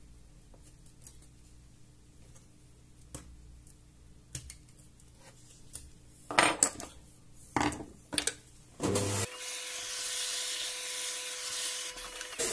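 Faint clicks and handling taps on the laptop's innards, then a few louder clatters of small metal tools at about six and eight seconds. About nine seconds in, a small electric motor starts and runs with a steady whine and hiss for about three seconds before cutting off.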